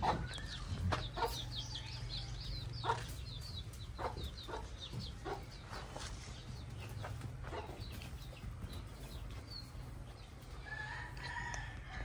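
Domestic chicks peeping, a hen with her brood: many short high cheeps in quick succession over the first few seconds, thinning out later, with a few clucks. A steady low hum runs underneath.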